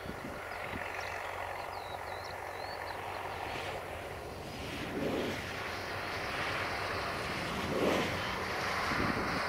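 Steady motor hum with a noisy, wind-like hiss, swelling briefly twice near the middle and end; a small bird chirps repeatedly over the first few seconds.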